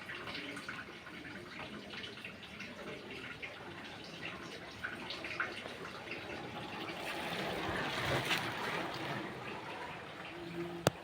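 Steady rushing noise of a bicycle ride, wind and tyres on the road, with scattered small clicks. It swells about eight seconds in.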